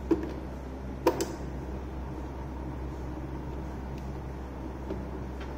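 Sanyo G-2607H portable stereo's speaker giving a steady low hum and faint hiss between radio speech, with a sharp click near the start and a couple more about a second in as its control knobs are handled.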